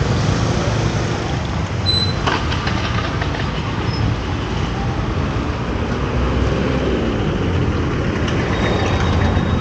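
Busy street traffic: motor scooter and car engines running close by over steady road noise, with a short high beep about two seconds in.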